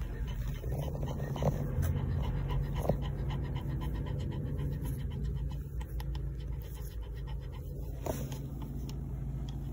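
Newborn Pomeranian puppies suckling at their mother: soft smacking clicks over steady dog panting.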